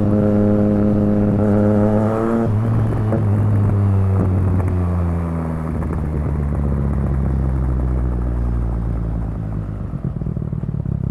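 2020 Triumph Street Triple RS three-cylinder engine through a Yoshimura Alpha T exhaust with its dB killer fitted. It pulls with slowly rising revs, then the throttle shuts about two and a half seconds in. The revs fall away and it settles into a low, steady rumble.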